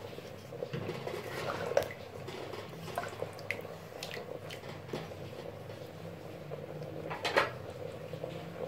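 A spoon stirring potatoes and meat through thick gravy in an aluminium pressure-cooker pot: soft wet squelches with light scrapes and clicks of the spoon on the metal, and a louder knock about seven seconds in, over a steady low hum.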